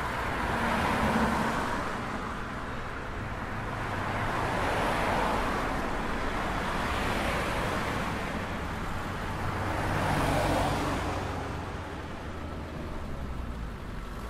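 Road traffic: cars passing one after another, each a rise and fall of tyre and engine noise over a low rumble, about four passes.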